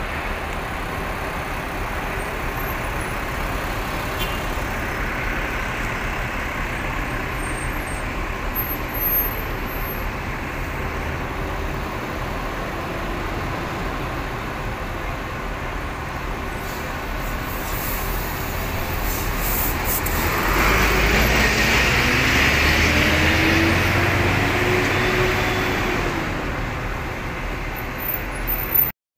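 Steady city street traffic noise. About two-thirds of the way through, a vehicle engine passes close and gets louder, its pitch rising as it speeds up.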